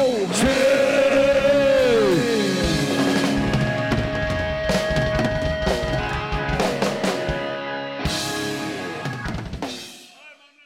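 Live rock band with a full drum kit playing the closing bars of a song: a held note slides down about two seconds in, then drum hits and cymbal crashes ring over sustained guitar chords. The sound fades away in the last second.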